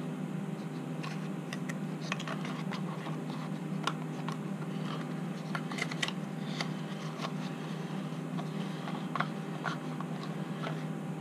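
Small white parts box and its screws being handled: light, irregular clicks, taps and scrapes of plastic packaging and small hardware, over a steady low hum.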